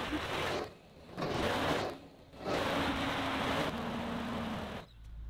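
Tracked skid steer loader working in sawdust, its engine and hydraulics surging three times under load. The sound cuts off abruptly near the end, leaving a low hum.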